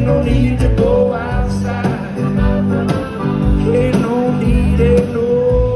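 Live band playing an acoustic-guitar-led pop song, with a male lead vocal singing a melody that holds long notes in the second half, heard from within the crowd.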